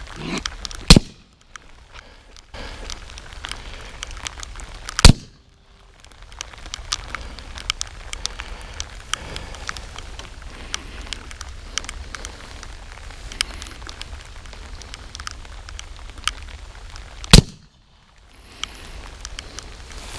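Three suppressed .45 ACP pistol shots from an FNX-45 Tactical fitted with a SilencerCo Octane 45: one about a second in, one about four seconds later, and one near the end. Between the shots there is a steady crackling with many small clicks.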